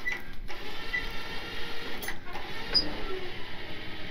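Harbor Freight electric winch running under load, its motor and gears giving a steady, pulsing whine as it pulls a heavy truck with flat tires, with a couple of short clicks.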